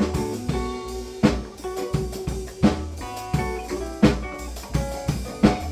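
Background music: a drum kit with a loud backbeat about every second and a half, over bass and melodic notes.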